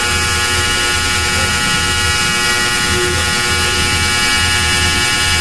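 Steady electrical-sounding buzz over a constant hiss, unchanging in pitch and level, with an uneven low rumble beneath it.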